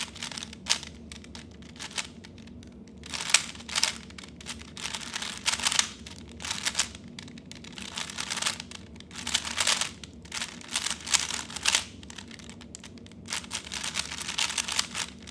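A 3x3 Rubik's cube being turned fast in a timed solve: bursts of rapid plastic clicking and clacking as the layers are turned, with short pauses between the bursts.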